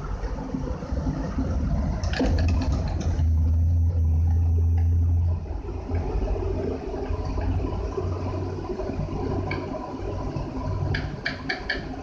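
Vintage Singer sewing machine running while stitching: a low motor hum that is loudest and steadiest for a couple of seconds a few seconds in, then runs on more lightly, with bursts of sharp clicks from the mechanism.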